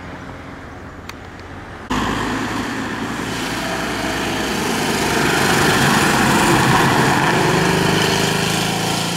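Rally car engine passing at speed: a first-generation Panda hatchback comes up loud, with its engine pitch rising as it revs out near the end before it starts to fade. Before that, a fainter engine from a departing rally car is cut off abruptly about two seconds in.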